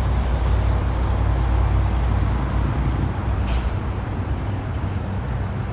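A motor vehicle engine running nearby: a steady low rumble that fades off after about three and a half seconds, with a few faint clicks near the end.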